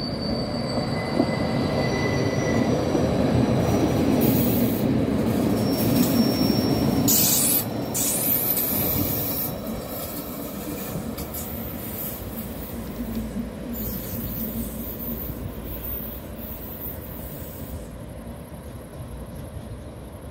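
Rhaetian Railway ABe 8/12 Allegra electric multiple unit passing close by on curved track, its wheels squealing with thin high tones in the first few seconds. The rumble is loudest a few seconds in, then fades steadily as the train pulls away.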